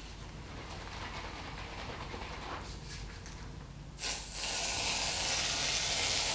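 Aerosol foam can spraying foam into a vase of water: a steady hiss that starts suddenly about four seconds in.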